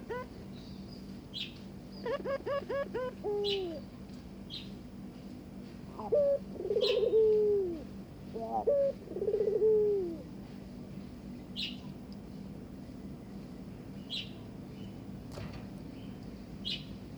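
Barbary dove (puter) cooing in courtship: bursts of rapid stuttered notes that end in a falling coo, four times. Short, sharp high chirps from another bird are scattered in between, over a steady low hum.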